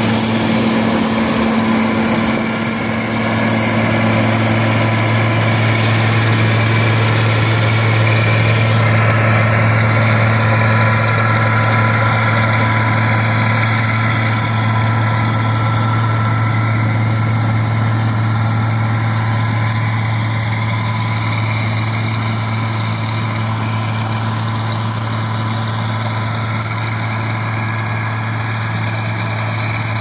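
John Deere 630 combine harvester's 95 hp Perkins diesel engine and threshing machinery running steadily under harvesting load: a continuous low drone with a strong steady hum.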